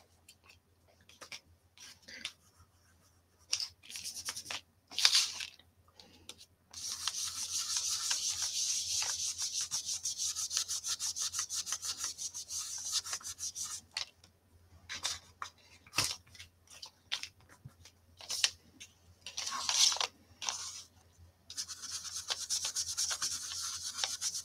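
Ink blending brush scrubbed in quick circles over cardstock, laying pink ink onto a paper flower: a fast, dry bristle scratching that runs for about seven seconds, stops, and starts again near the end. A few light taps and knocks come between.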